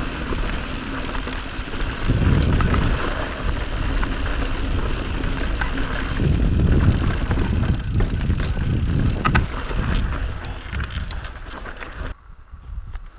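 Mountain bike riding fast down a rocky dirt singletrack: wind buffeting the microphone, tyres running over dirt and rock, and scattered clicks and rattles from the bike over the bumps. The wind rumble falls away near the end.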